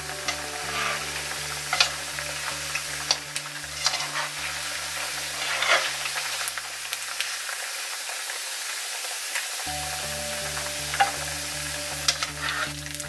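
Tofu cubes deep-frying in hot oil with a steady sizzle. A metal skimmer clicks and scrapes against the pot now and then as the golden-brown cubes are scooped out.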